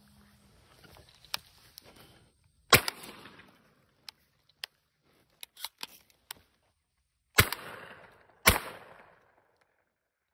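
Shotgun firing three shots: one about three seconds in, then two about a second apart near the end, each with an echoing tail. Fainter sharp cracks fall in between.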